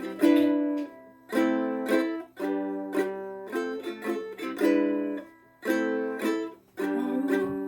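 Ukulele strumming chords in a stop-start rhythm: a short burst of strums about once a second, each followed by a brief silence.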